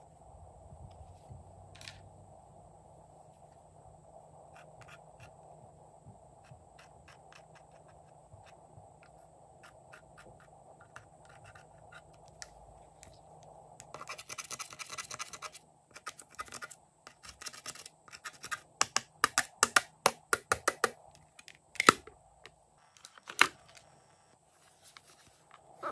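A small metal tool scraping and digging pressed eyeshadow powder out of a plastic palette's pans: a dense patch of scratching, then quick sharp scrapes and taps about four a second, then two loud clicks.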